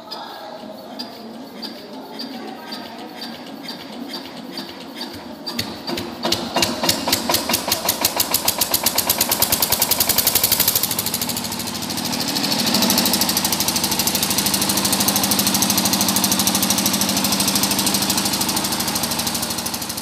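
Diesel generator engine being started with a hand crank. Slow, regular strokes speed up, and about six seconds in the engine catches, firing in loud beats that quicken, then settles into steady running from about thirteen seconds.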